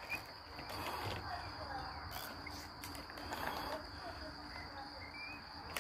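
Crickets trilling steadily, one high unbroken tone, with faint short bird chirps scattered through it.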